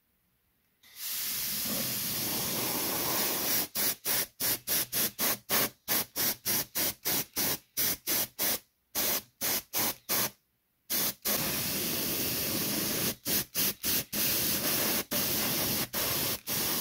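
Harder & Steenbeck Infinity CR Plus airbrush spraying paint close to the microphone: a loud air hiss that starts about a second in. The hiss is broken into quick short bursts, about two or three a second, as the trigger is worked, with two brief stops near the middle, a steadier stretch after them, and quick bursts again toward the end.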